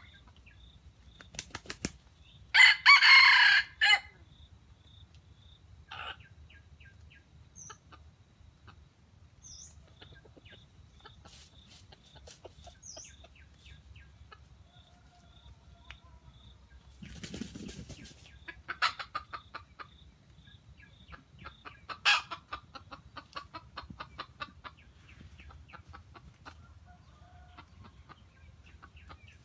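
Red junglefowl (wild chicken) rooster crowing once, a loud, short crow about two and a half seconds in, followed later by runs of rapid clucking near the middle and after it, with a brief rustle and a few faint bird chirps.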